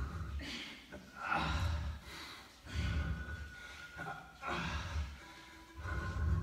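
Heavy rhythmic breathing from people doing push-ups: a forceful exhale with each rep, about one every second and a half.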